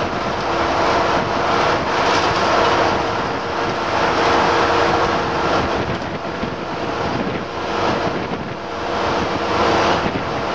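Leyland Olympian 11m double-decker bus under way, heard from inside: a steady drone of engine and drivetrain with a few faint held tones, mixed with rushing wind and road noise.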